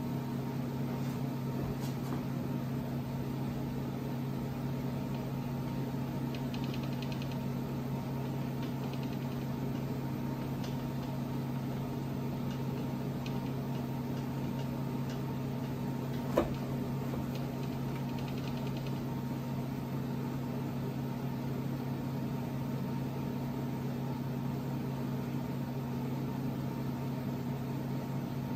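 King Canada KC20VS bench mill running steadily with an even hum while spot-drilling hole centres, with a few faint ticks and one sharp click a little past halfway.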